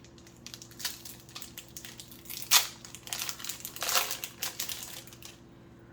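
Plastic wrapper of an Upper Deck Marvel Annual trading card pack being torn open and crinkled: irregular crackles, with the loudest about two and a half seconds in and another run of crinkling a second later.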